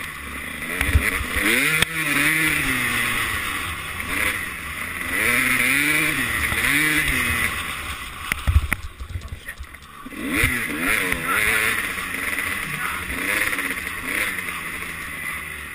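250cc two-stroke motocross bike engine revving up and easing off again and again as the rider works the throttle along a dirt trail, with a brief lull about two-thirds of the way through. A few sharp thumps stand out, the loudest just before the lull.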